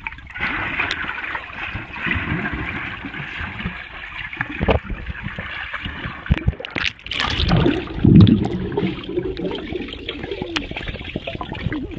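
Swimming-pool water heard with the microphone underwater: a steady muffled rushing and gurgling, broken by sudden splashy bubbling, loudest about eight seconds in.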